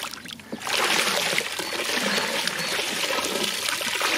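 Water pouring from a plastic tub into a pond and splashing on the surface as the tub of young grass carp is tipped out. The pour swells a little under a second in and then runs steadily.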